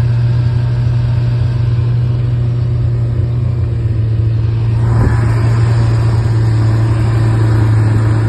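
Steady low drone of a car on the move, with road noise swelling about five seconds in.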